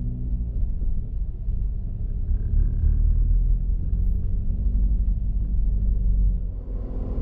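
Low rumble of a car's engine and tyres, heard from inside the cabin as it drives along.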